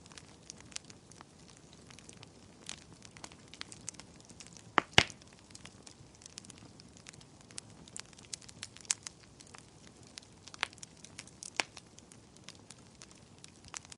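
Wood fire in a fireplace crackling, with scattered small irregular pops and a pair of louder pops about five seconds in.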